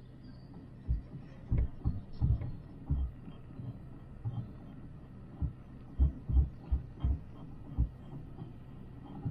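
Ride noise inside a descending cable-car gondola cabin: a steady low hum with irregular low thumps and knocks, the heaviest about six seconds in.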